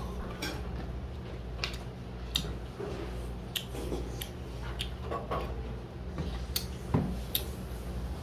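Scattered light clinks and taps of tableware as a plastic makgeolli bottle is picked up, poured into a small bowl and knocked back down on a wooden table, the loudest knock about seven seconds in. A steady low hum runs underneath.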